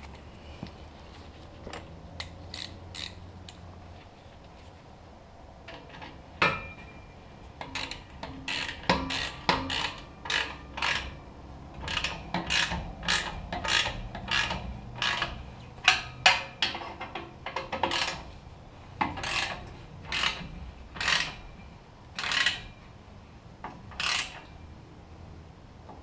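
Hand ratchet wrench clicking as it tightens the clamp on a truck's exhaust tip: a long, uneven run of short, sharp clicks, one or two a second, starting about two seconds in.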